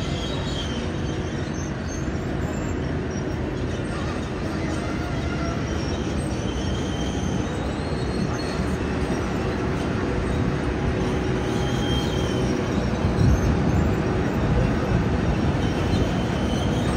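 Steady drone and rumble of airport ramp noise from aircraft and ground equipment running, growing slightly louder, with faint high whines now and then.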